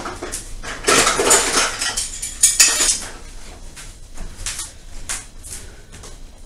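Kitchen dishes and utensils clattering and scraping. A dense scraping stretch runs for about two seconds, then come scattered knocks and clinks.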